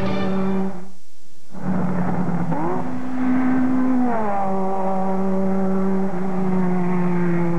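Racing car engines running hard at high revs. The sound briefly thins about a second in, the revs rise shortly after, then drop about four seconds in as the cars slow into a corner, and they hold steady after that.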